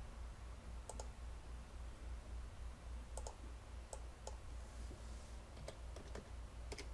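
Faint, scattered clicks of computer input while circuit component values are entered, about eight spread irregularly over several seconds, over a steady low hum.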